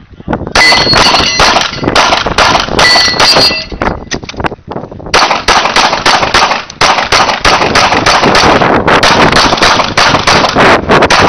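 Semi-automatic pistol fired in fast strings of shots, with a short pause about four and a half seconds in before the rapid firing resumes. A couple of brief ringing tones sound among the first shots.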